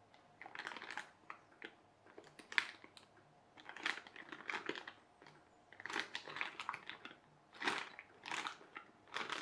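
A clear plastic bag crinkling as it is handled, in irregular bursts with short pauses between them.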